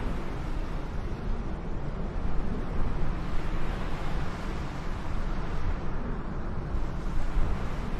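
Steady rumbling noise of jet aircraft engines, with no distinct tones or impacts.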